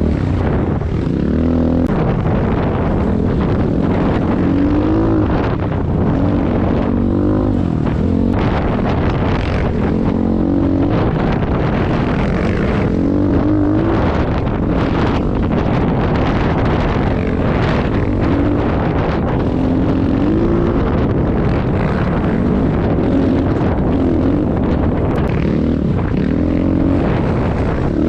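Enduro dirt bike engine revving up and down again and again, its pitch rising and falling every two to three seconds as it is ridden off-road.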